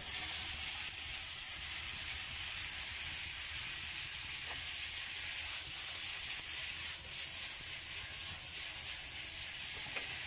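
Chopped tomatoes sizzling in a hot frying pan with onions and peppers fried in butter, over an open wood fire: a steady frying hiss that swells as the tomatoes go in, with a few faint crackles.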